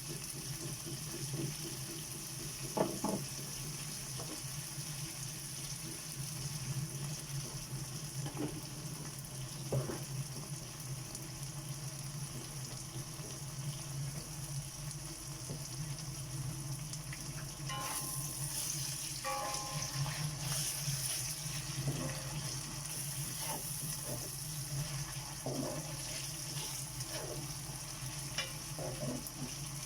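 Vegetables sautéing in oil in a pan, with a steady sizzle and the occasional click and scrape of a utensil against the pan. A steady low hum runs underneath.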